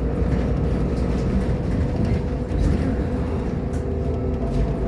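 Irisbus Agora L city bus driving along, a steady low rumble of engine and road noise with a faint steady whine above it.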